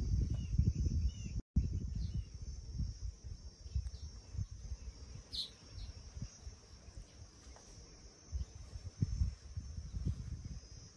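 Outdoor field ambience: wind buffeting the microphone in irregular low rumbles, over a steady high insect drone. The sound cuts out completely for an instant about a second and a half in, and a short high chirp comes about halfway through.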